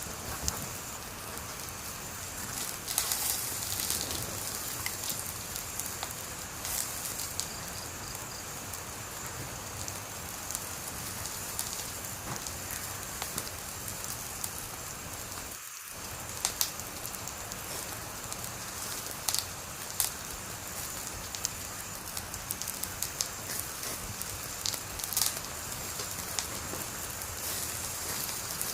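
Wood fire burning: a steady hiss with irregular crackles and pops, and a few louder snaps now and then.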